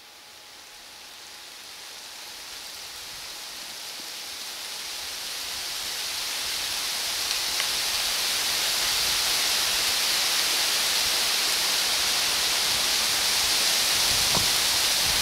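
Sound of rain fading in over the first eight seconds, then holding as a steady hiss, with a few faint low rumbles near the end.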